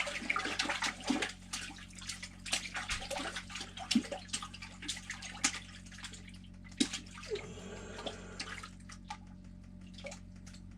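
A freshly landed fish thrashing and splashing, with water dripping: a run of quick wet slaps and patters that thin out as it goes, over a steady low hum.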